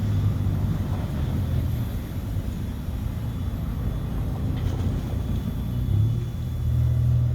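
Low, steady vehicle rumble that grows louder about six seconds in.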